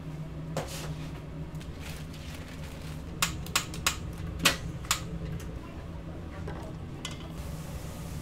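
Kitchenware clattering in a doughnut shop: five sharp knocks and clinks, bunched between about three and five seconds in, over a steady low hum.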